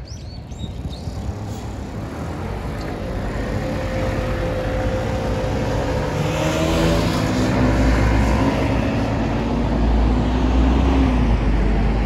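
Road traffic: a motor vehicle's engine pulls away and passes close, growing steadily louder through the first half. The engine note shifts in pitch, and a heavy low rumble holds from about halfway on.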